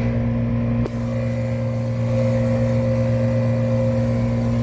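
Weather King air-conditioning condensing unit running, its Bristol reciprocating compressor giving a loud, steady low hum along with the outdoor fan.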